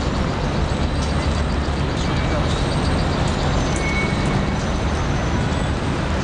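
Steady city street traffic noise, with the low engine rumble of a coach bus passing close by.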